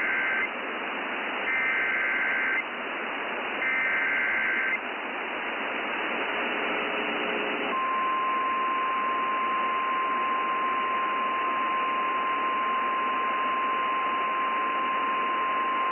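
NOAA Weather Radio emergency alert heard over hissy, static-laden reception: three short bursts of warbling SAME header data tones, then, about eight seconds in, a steady single-pitch 1050 Hz warning alarm tone.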